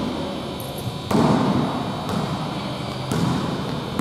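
A basketball being dribbled on a hardwood gym floor: three bounces about a second apart, each ringing briefly in the hall.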